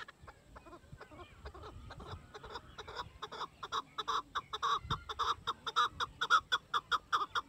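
Chukar partridge calling: a rapid series of short, repeated "chak-chak" notes, about four a second. It starts quietly about two seconds in and grows louder.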